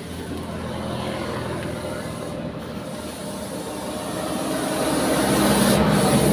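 A motor vehicle's engine running, a steady low rumble that grows louder in the last couple of seconds.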